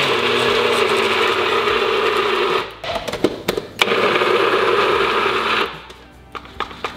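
Magic Bullet personal blender running in two pulses of about two and a half seconds each, separated by a short break, shredding cooked pork. It stops a little over halfway through, followed by a few light clicks and knocks as the cup is handled.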